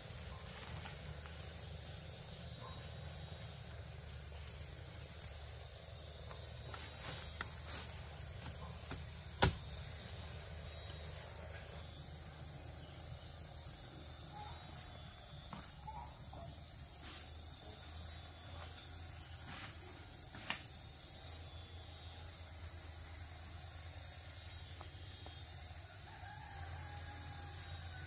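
Steady chorus of insects, a continuous high-pitched trill, with a few sharp clicks, the loudest about nine and a half seconds in.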